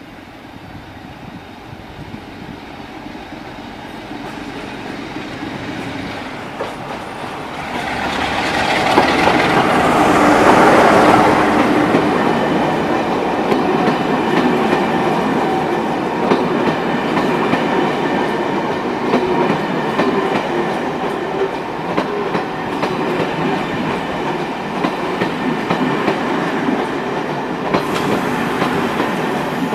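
Locomotive-hauled passenger train running into the platform: the sound builds and is loudest about ten seconds in as the front of the train passes, then the coaches roll past steadily.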